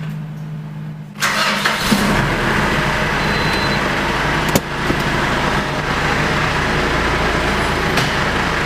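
Diesel pickup truck engine starting about a second in and then idling steadily, heard from the driver's seat, with a couple of sharp clicks.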